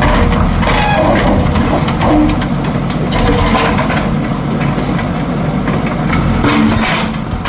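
Heavy diesel engine of a bulldozer-type earth-moving machine running steadily, with a few knocks near the end.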